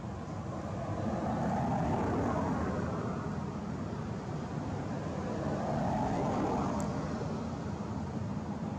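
Motor vehicle noise of passing traffic, a steady rumble that swells twice, about two seconds in and again about six seconds in.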